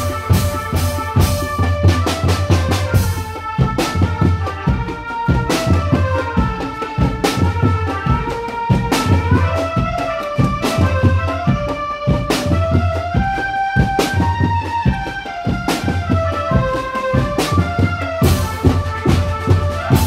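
A marching drum band playing: big bass drums and other percussion beating a steady rhythm under a stepping melody line.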